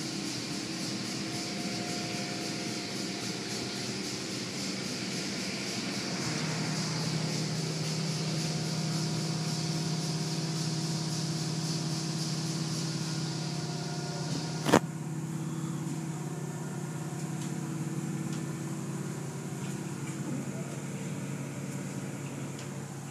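Automatic tunnel car wash heard from inside the car: cloth strip curtains sweeping over the foam-covered body, with steady hiss and machinery hum. A sharp knock comes about fifteen seconds in, after which the high hiss falls away.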